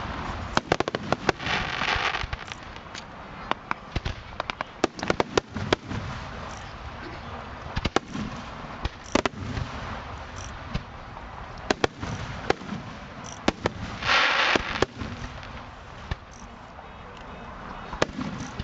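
Aerial fireworks shells bursting overhead at close range: a long irregular run of sharp bangs, some in quick clusters, with two short stretches of hissing noise, one near the start and one about 14 seconds in.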